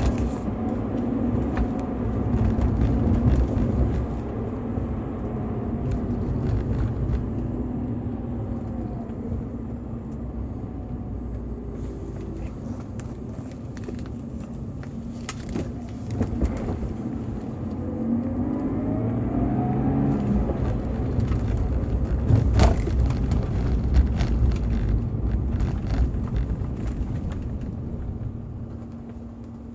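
BMW E46 320i's 2.0-litre M52TU inline-six engine running with its stock exhaust, its pitch falling and rising as the revs change. A few sharp knocks stand out, the loudest about two thirds of the way in.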